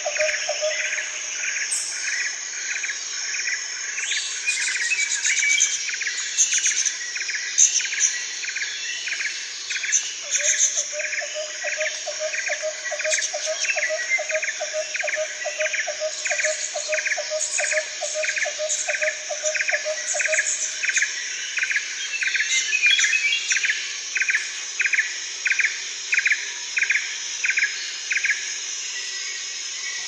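Tropical forest ambience: a steady high drone of insects under a call repeated about twice a second, which stops near the end, with scattered bird chirps. A lower, rapidly pulsing trill joins from about ten to twenty seconds in.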